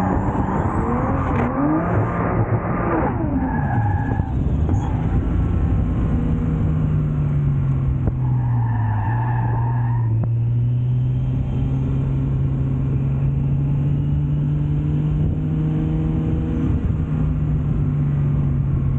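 Nissan S14 drift car's RB25 straight-six engine running hard on track, its pitch swinging up and down with the throttle in the first few seconds and then holding fairly steady revs. Tyres squeal briefly about four seconds in and again around nine seconds as the car slides.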